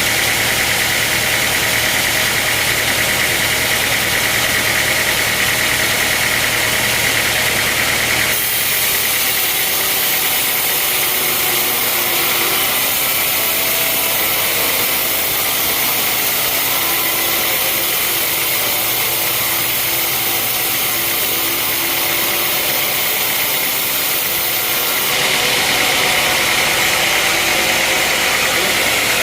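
Sawmill machinery running steadily, an engine under a continuous mechanical noise. Its tone changes abruptly about eight seconds in and changes back a few seconds before the end.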